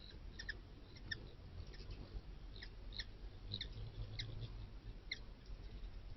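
Faint, short, high chirps from a small animal, about ten at irregular intervals, over a steady low hum.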